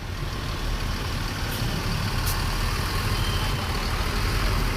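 Bus engine running with a steady low rumble over road noise.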